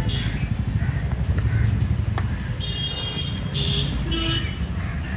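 Road traffic going by with a steady low rumble, and two short high-pitched vehicle horn toots about three seconds in.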